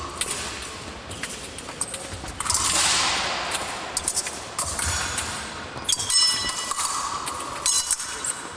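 Épée blades clashing during a fencing bout: a string of sharp metallic clicks and strikes. Several of the strikes about six seconds in ring briefly.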